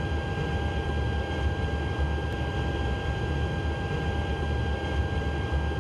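Steady flight-deck background noise of a Boeing 777-300ER in flight: an even rush of airflow over a low rumble, with a faint steady hum, unchanging throughout.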